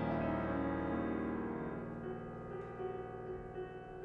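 Solo piano music: held notes and chords ringing on and slowly fading away.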